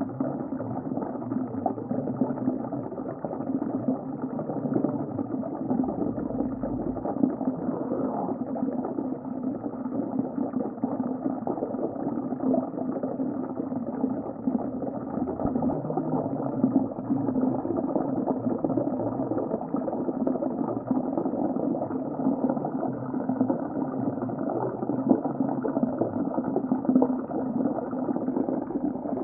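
Underwater sea ambience: a steady, muffled rush of water with fine bubbling and crackling, with nothing in the high tones.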